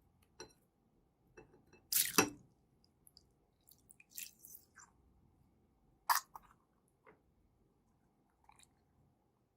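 Slime being squished and worked in the hands: irregular short squishing clicks and pops, the loudest a quick pair about two seconds in and another about six seconds in.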